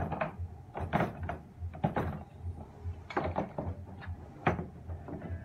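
A series of sharp knocks and clicks, about six spread over a few seconds, as a DeWalt cordless hammer drill is handled and set into its hard plastic carrying case.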